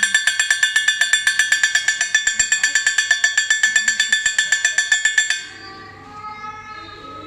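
Homemade doorbell ringing loudly: a small motor spins a wire hammer that strikes metal about seven times a second, each strike ringing high and bright. The rapid ringing stops suddenly about five seconds in when the button is released.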